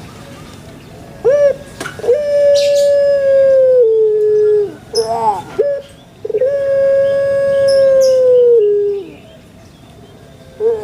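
A dove cooing: two drawn-out coo phrases, each a short rising note followed by a long held note that drops a step in pitch near its end. Faint chirps of other birds sound in the background.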